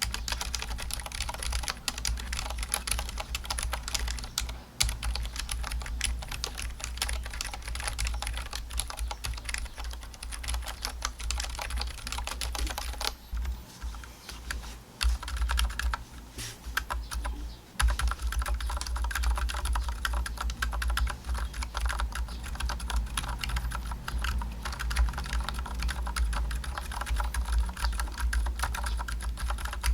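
Fast typing on a mechanical keyboard fitted with ZealPC Zilents V2 62g silent tactile switches, giving dense, soft keystroke clicks. The typing thins and briefly stops about 13 to 17 seconds in, then resumes with the switches lubed and filmed. A steady low hum runs underneath.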